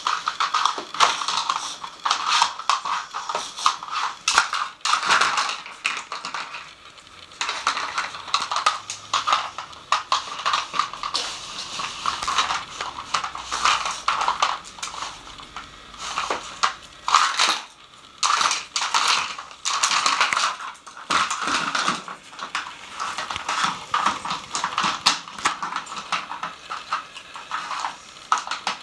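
Hard plastic pieces of a dog treat puzzle clattering and knocking in quick irregular runs as a dog noses and paws at the lids and lift-out cones, mixed with crunching.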